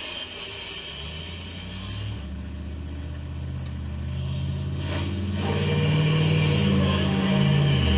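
Hallicrafters S-120 shortwave receiver playing through its speaker while being tuned: static hiss with low droning tones that shift in pitch in steps, growing louder about halfway through.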